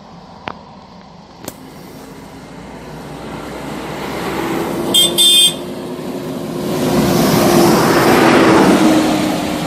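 Intercity coach bus approaching uphill, giving two short horn toots about five seconds in, its engine and road noise then growing loud as it passes close by near the end.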